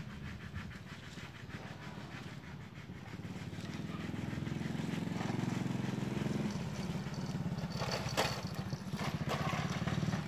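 Motor vehicle engine running, growing louder from about three seconds in and then holding steady, with one sharp click about eight seconds in.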